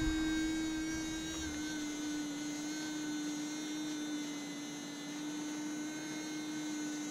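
Steady electric buzzing hum from the Ugly Box coin cleaner's handheld sonic wand, one buzzing note with higher overtones. Its pitch drops a little about a second and a half in.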